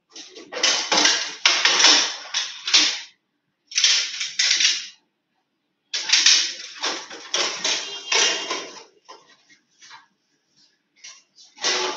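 Irregular bursts of clattering and rustling noise, with dead-silent gaps between them.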